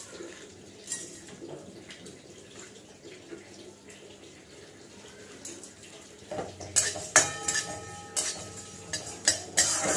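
Metal spatula scraping and knocking against a metal kadai as whole spices dry-roast in it, starting about six and a half seconds in, the pan ringing briefly after the sharper strikes.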